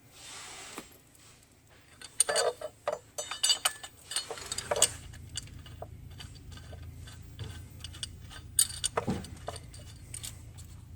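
Scattered metallic clicks and clinks of a steel bracket, stud and wrench being handled and fitted against an engine while the fastener is snugged down, over a faint steady low hum.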